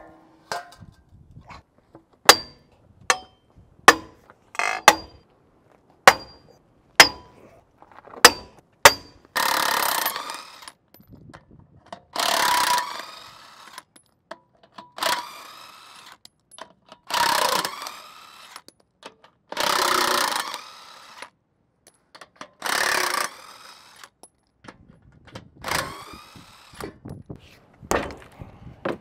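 Metal struck sharply about nine times, roughly once a second, each hit ringing briefly. Then a power tool runs in seven short bursts of about a second each, a couple of seconds apart.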